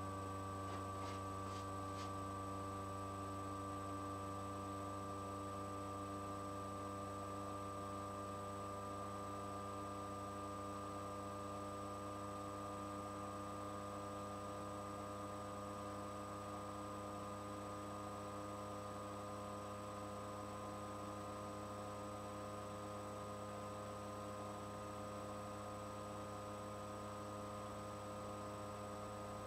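Steady electrical mains hum made of several fixed tones, with a few faint ticks about a second in.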